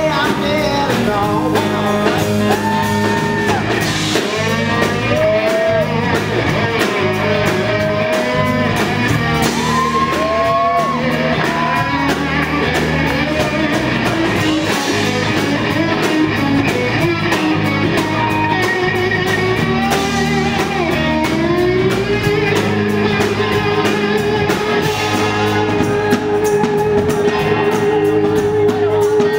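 Live rock band playing an instrumental break: an electric guitar plays a solo full of string bends over bass and drums, ending on one long held note with vibrato.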